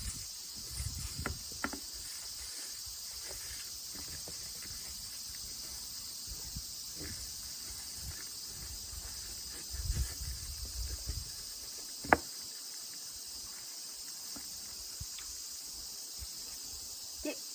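Steady high-pitched chirring of insects, with a few low bumps on the microphone about a second in and again around ten seconds, and one sharp click about twelve seconds in.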